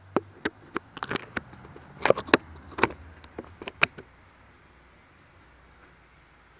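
A quick series of sharp knocks and clicks, about a dozen in the first four seconds, from things being handled and set down in a kitchen, then quiet apart from a faint low hum.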